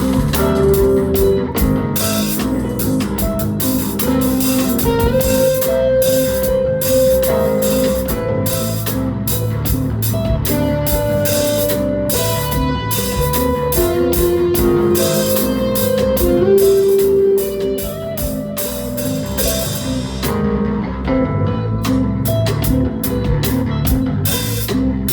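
Live instrumental rock band playing: Chapman Stick and drum kit, a plucked riff with held melody notes over a busy drum pattern. The drums drop back briefly about 20 seconds in, then pick up again.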